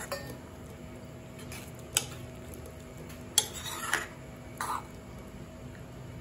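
Steel ladle stirring kidney beans in a watery gravy in a metal kadai, clinking sharply against the pan about four times.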